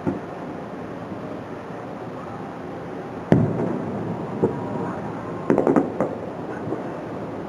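Aerial fireworks bursting over steady background noise: one loud boom about three seconds in that rings on as it fades, a smaller pop a second later, then a quick run of sharp cracks around five and a half to six seconds.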